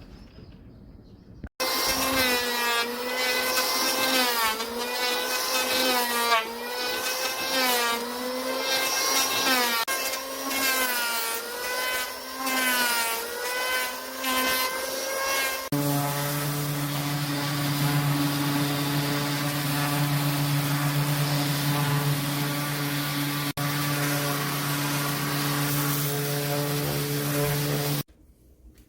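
An electric power tool working the steel of a railroad rail, its motor pitch dipping and recovering again and again as it is pressed into the metal and eased off. After a sudden cut, a steady machine runs at an even pitch until it stops abruptly near the end.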